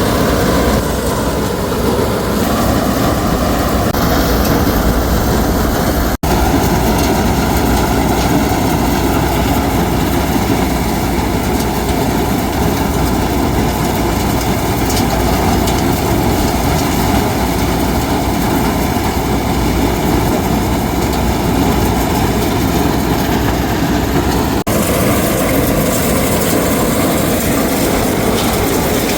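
An engine running steadily at a constant speed, with a heavy low rumble. It drops out for an instant about six seconds in.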